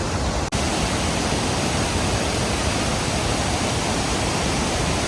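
Eagle Falls in full spring snowmelt flood: a deafening, steady rush of falling water that fills every pitch, with a momentary dropout about half a second in.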